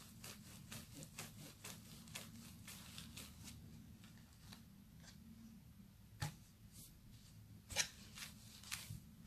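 White plastic rolling pin rolling back and forth over pastry dough on a plastic tablecloth: faint, irregular light clicks and rustles several times a second, with a few sharper knocks around six and eight seconds in, over a faint low hum.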